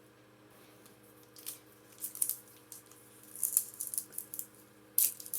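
Foil booster-pack wrapper crinkling and trading cards being handled, in short irregular rustles that begin about a second and a half in, with a louder one near the end.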